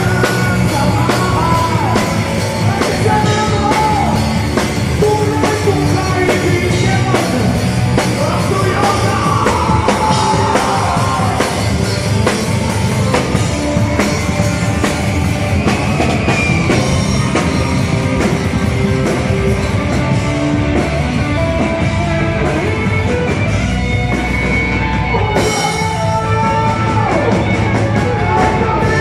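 Rock-style band music, with drum kit and guitar and a singing voice, playing steadily.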